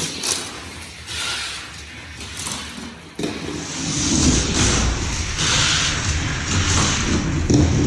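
Diecast toy cars rolling down a plastic race track, their small wheels rattling and rumbling along it. The sound turns suddenly louder and fuller about three seconds in.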